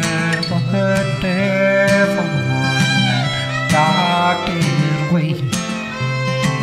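Instrumental break of a country song: an acoustic guitar strumming under a fiddle playing the melody with sliding notes.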